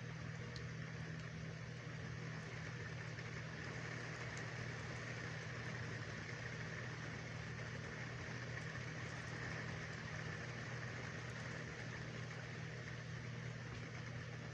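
Steady rain hiss over a constant low mechanical hum, unchanging throughout.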